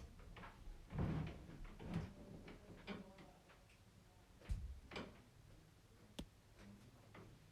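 Scattered light knocks and clicks from objects being handled, about one a second, with a sharp click about six seconds in.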